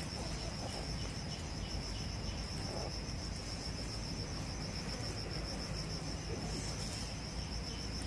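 Insect chirring: a steady, high-pitched trill of rapid even pulses that holds without a break.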